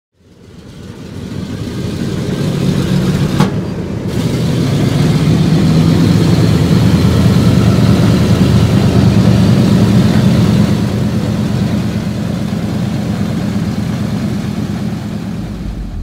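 A loud, steady engine rumble that fades in over the first couple of seconds, with a brief falling tone about three and a half seconds in.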